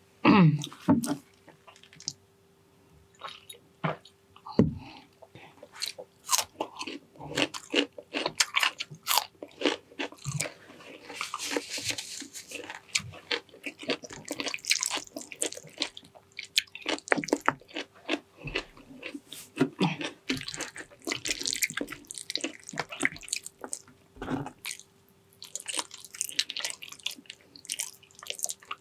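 Close-miked chewing of braised pig's trotters: a steady run of wet smacking and crunching bites.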